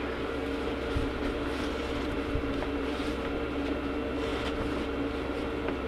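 Steady mechanical hum holding two even tones over a low rumble, with a few faint clicks from parts being handled.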